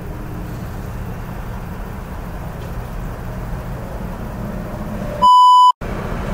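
A steady low rumble, then about five seconds in a loud half-second censor bleep at one high pitch that blanks out all other sound.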